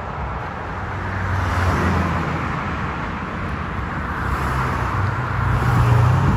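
Road traffic: a motor vehicle's engine hum with road noise, swelling about a second and a half in and again near the end.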